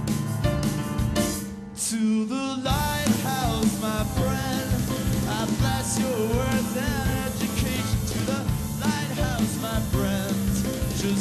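Live band music from a concert. The sound thins briefly about two seconds in, then a wavering melody with vibrato carries on over the band.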